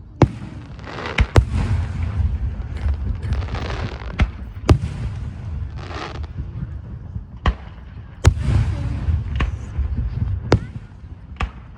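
Aerial fireworks going off in quick succession: about a dozen sharp bangs, several followed by a crackling hiss and a low rumble.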